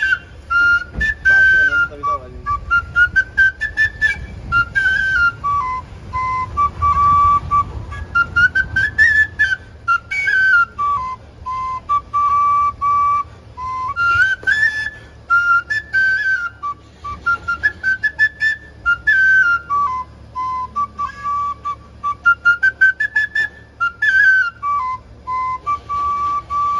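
Side-blown flute playing a Pahadi folk tune: a single melody that rises and falls in phrases repeating every few seconds.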